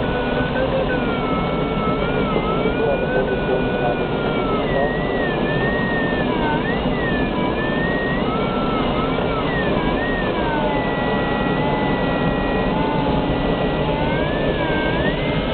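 Steady rush of air around the canopy of a Ka 6 glider in flight, with an electronic variometer's tone sliding up and down in pitch and dropping lower about ten seconds in.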